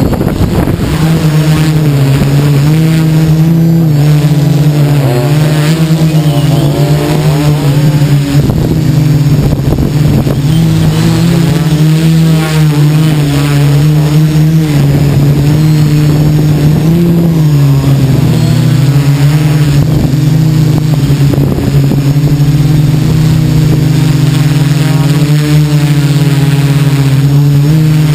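Multirotor drone's Tiger Motor MT-4006 brushless motors and propellers, heard from the onboard camera. They spin up at the start, then run with a steady loud hum whose pitch wavers up and down as the throttle changes in flight.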